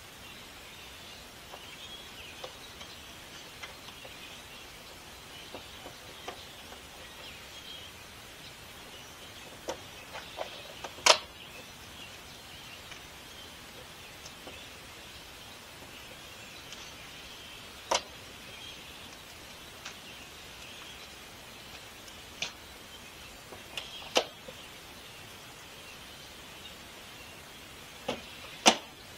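Sharp single clicks and knocks, a few seconds apart, as plastic retaining clips are pushed into the trim ring of a thin shade RV entry-door window, the loudest about eleven seconds in and a quick pair near the end.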